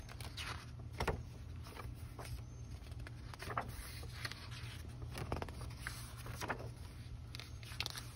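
Pages of a hardcover picture book turned by hand: a handful of short paper rustles and handling noises over a steady low background hum.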